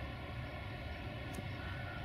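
Diesel-electric locomotive running steadily, a low engine rumble with a steady whine above it, and one brief faint high click about two-thirds of the way in.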